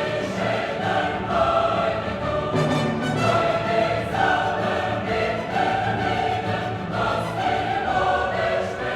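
Background music: a choir singing long, held notes with instrumental accompaniment.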